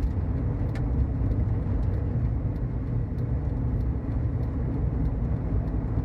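Steady road and engine rumble heard from inside a moving car's cabin, with faint light ticks throughout.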